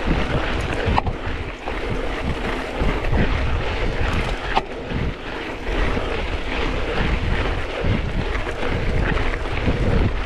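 Wind rushing over a mountain biker's action-camera microphone while riding, with a steady low rumble from the ride. Two sharp clicks, about a second in and about halfway through.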